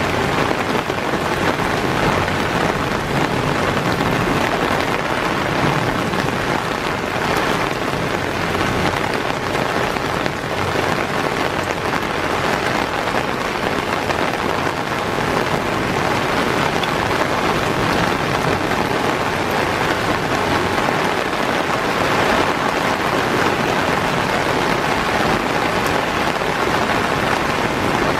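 Steady rain falling on garden foliage, a dense even hiss without pause.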